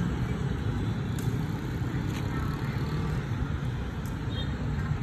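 Steady low rumbling background noise, with a few faint light clicks.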